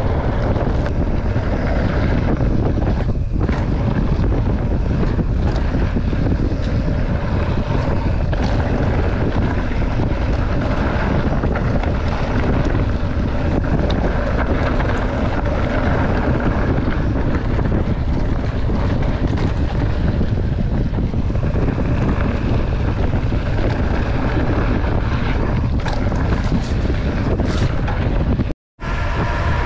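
Steady wind rumble buffeting the microphone of a camera riding along on a mountain bike down a trail, with scattered knocks and rattles. The sound drops out completely for a moment near the end.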